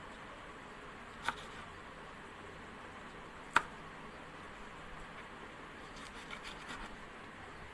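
Kitchen knife knocking on a plastic cutting board as chilies are cut: a sharp knock about a second in, a louder one a little past the middle, and a few faint ticks near the end.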